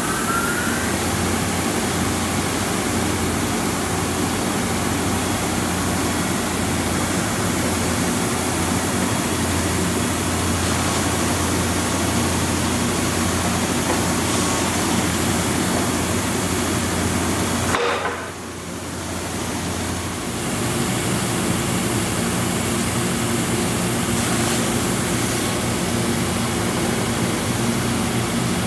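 Sandingmaster KCSB-1300 51-inch single-head wide belt sander running steadily, with a constant loud whir of the sanding belt and motors as a glued-up panel travels through on the conveyor. The noise dips briefly about two-thirds of the way in, then carries on.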